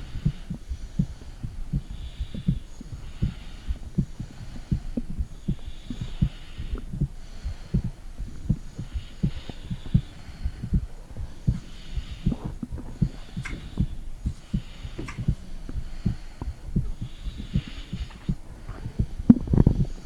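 A human heartbeat picked up by a phone microphone pressed against the body: rapid, regular low thumps, with a soft hiss that swells every couple of seconds.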